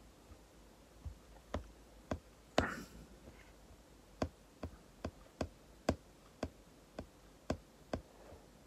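Faint, sharp single clicks from working a computer's controls, coming unevenly at roughly one to two a second.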